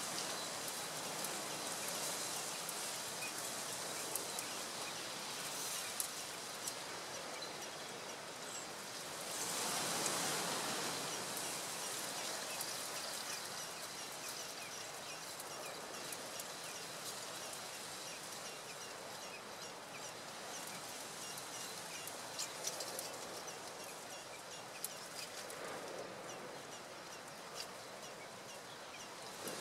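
Steady outdoor background hiss with faint, scattered high chirps, and a louder swell of rustling noise about ten seconds in.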